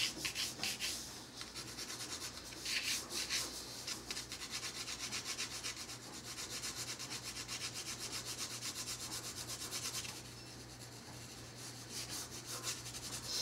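Pencil scribbling on paper: rapid back-and-forth scratching strokes as a rough sketch is laid in, easing to lighter strokes for a couple of seconds near the end.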